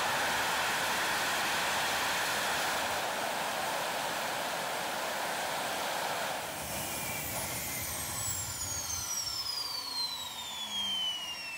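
Homemade gas turbine jet engine running with a loud, steady roar that drops away about six and a half seconds in as it is shut down. The turbine's high whine then falls steadily in pitch as it spools down.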